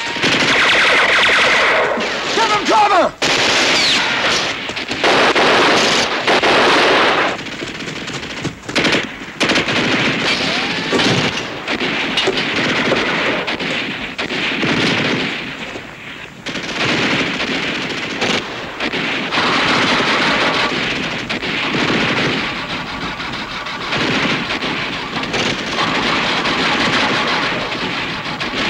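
Long bursts of machine-gun fire mixed with other gunfire, dropping off briefly a few times.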